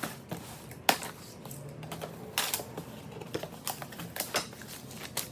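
Cardboard box and packaging being opened and handled: irregular clicks, taps and light rustles.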